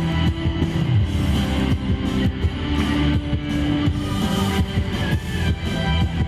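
Live rock band playing an instrumental passage with no vocals: guitar over a steady drum beat.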